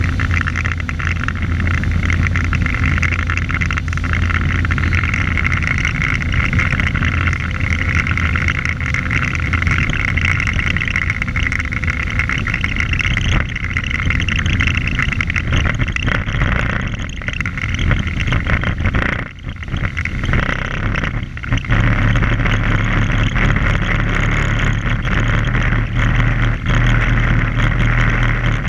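Boat engine running steadily under a rushing wash of wind and water. It dips briefly about two-thirds in, then carries on with a changed, lower hum.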